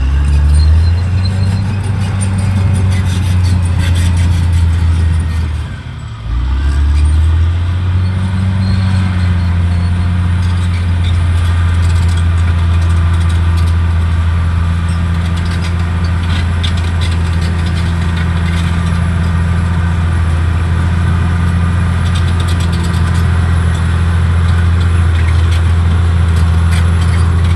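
Caterpillar D6R XL bulldozer's diesel engine running with a steady, loud low drone, briefly dropping and picking back up about six seconds in.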